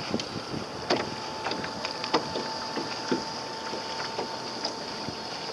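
Small waves slapping and knocking against the hull of a small boat riding a light chop, in irregular sharp slaps. A faint steady tone joins about a second in.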